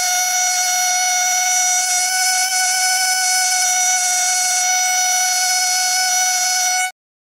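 Pen-style fossil preparation scribe running against limestone matrix around an ammonite, a steady high-pitched whine that cuts off suddenly near the end.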